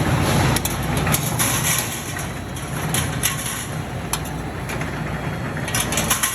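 Factory machinery of a metal open-cell ceiling production line running with a steady hum, with scattered sharp clicks and a quick run of them near the end.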